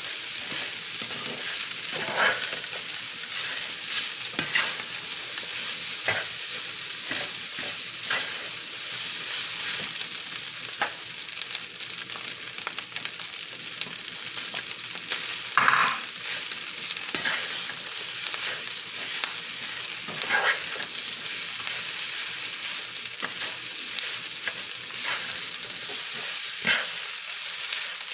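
Fried rice sizzling steadily in a pan while it is stirred, the utensil scraping and knocking against the pan every second or two, with one louder clatter about halfway through.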